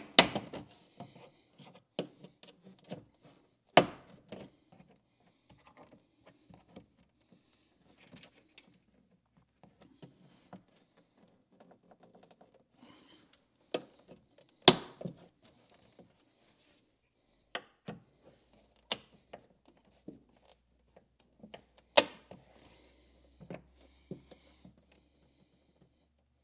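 Plastic retaining clips of a Mitsubishi Minicab's door trim panel being pried loose: scattered sharp clicks and knocks, several loud pops, with faint scraping and rustling of the panel between them.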